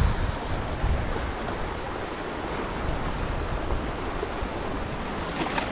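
Steady wash of waves on the shore, with wind rumbling on the microphone.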